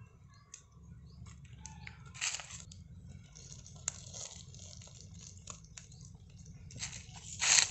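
Open wood fire crackling under chicken roasting on a stick, with scattered sharp pops and a faint fizzing, and two short hissing bursts, one about two seconds in and one near the end.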